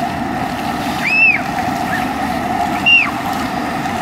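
Steady rushing spray of splash-pad fountain jets. Over it come two short, high squeals that rise and fall, about a second and a half apart, and these are the loudest sounds.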